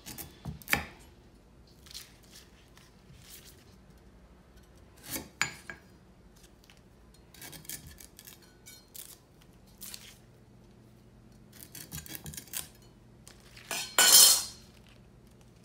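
Chef's knife cutting lemongrass stalks over a stone molcajete, with scattered clicks and knocks as the blade and cut pieces strike the stone bowl. A louder, longer clatter comes near the end.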